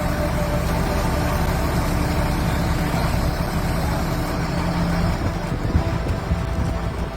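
A large vehicle engine running steadily at a constant speed, a low, even hum.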